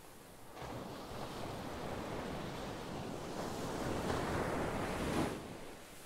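Ocean surf: a wave surges in about half a second in, builds to its loudest near the end, then falls away quickly.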